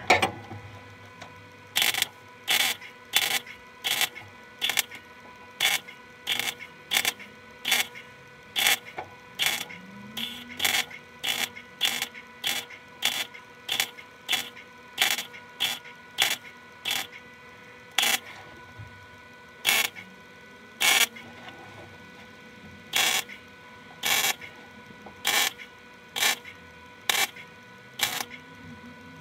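Welder laying a long series of short tack welds around a sheet-metal patch in a car's floor pan: brief bursts about one to two a second, with a couple of longer pauses in the second half.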